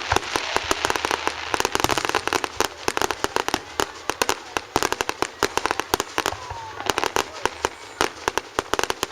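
Fireworks going off in rapid, irregular succession: many sharp cracks and bangs several times a second, over a continuous crackling hiss.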